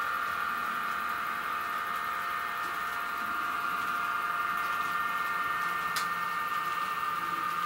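HO-scale model trains running on a layout: a steady motor whine with the hum of wheels on the track, and a single sharp click about six seconds in.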